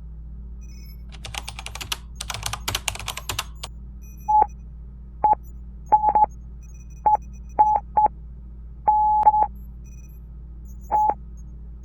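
A computer keyboard typed on for a couple of seconds, then a string of short and longer electronic beeps at one steady pitch, irregularly spaced like Morse code: the encoded signal recorded by the satellite being played back.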